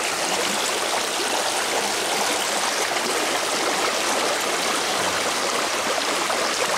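Small, fast stream rushing over rocks, heard close to the water surface, in a steady, loud rush.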